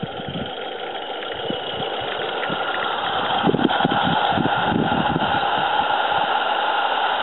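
Live-steam 16mm-scale model locomotive working hard as it pushes a snowplough through deep snow, with uneven exhaust beats over a steady hiss, growing louder as it comes closer.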